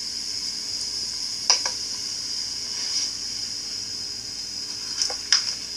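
Canned ginger ale poured into a plastic cup and fizzing with a steady hiss, heard through a phone's speaker. There is a sharp knock about a second and a half in and two more near the end.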